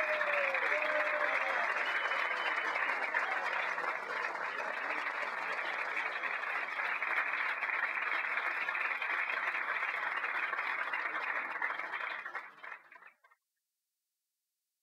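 Crowd applauding, with scattered voices mixed in. The sound fades out about twelve seconds in and stops abruptly a second later.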